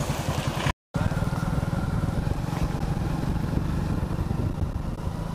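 A vehicle engine running steadily while driving along, a dense low pulsing drone. The sound cuts out completely for a moment just under a second in.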